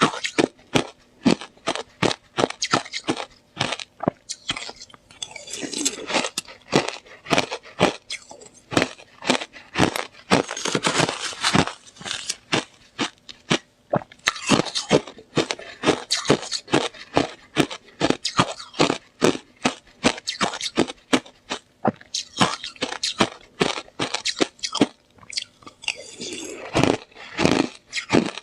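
Slushy ice being bitten and chewed close to the microphone: a steady run of wet, sharp crunches, about two or three a second, with a few longer grinding stretches as the slush is chewed down.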